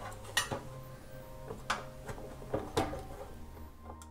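Espresso machine's water tank and filter being handled and set back into the machine: four or so separate hard clicks and knocks.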